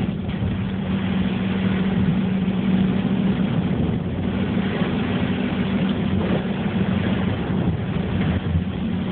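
Cabin noise of a Subaru Forester being driven: steady engine and road drone with a constant low hum.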